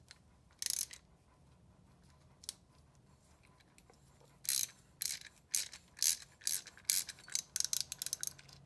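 Sharp metallic clicks as the nut is unscrewed by hand from the foot valve's plunger stem: a couple of single clicks, then a fast, irregular run of clicking from about halfway through.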